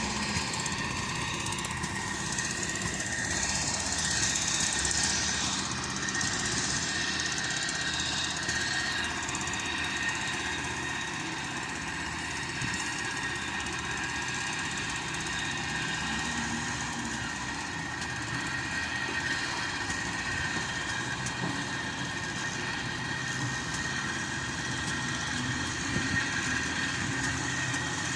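Diesel engine of a heavy construction machine running steadily, with a steady high whine over it.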